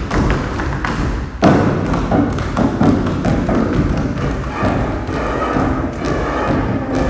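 Grand piano played inside the case and on its body in free improvisation: irregular knocks and thuds with the strings ringing on after them. The loudest is a low strike about a second and a half in, which rings.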